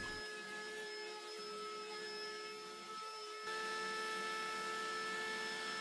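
Table-mounted wood router spinning a chamfer bit, a steady high-pitched motor whine that gets a little louder about halfway through.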